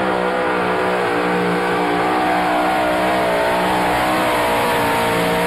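Supercharged V8 engine of a two-wheel-drive pulling truck running wide open under load as it drags the sled. It is a loud, steady engine note that wavers slightly in pitch.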